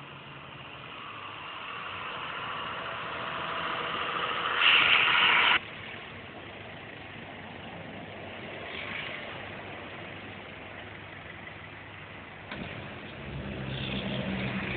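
Motor vehicle engine and road noise, swelling over the first few seconds, with a much louder rush of noise for about a second that cuts off suddenly; a sharp click comes near the end, after which a steady engine hum grows stronger.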